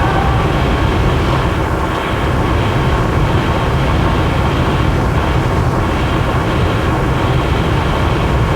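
Harsh noise music: a loud, unchanging wall of dense rumbling noise, heaviest in the low end, with no beat or melody.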